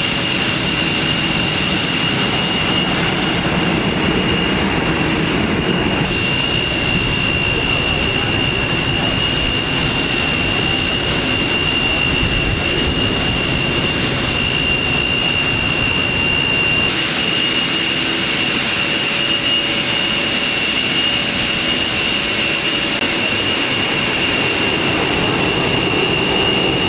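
Boeing 747 jet engines running with a steady high whine over a constant rumble.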